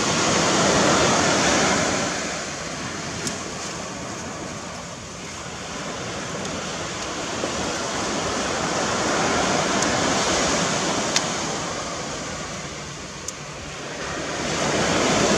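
Sea surf washing onto a beach, a steady rush that swells and fades slowly a few times, with a few faint clicks over it.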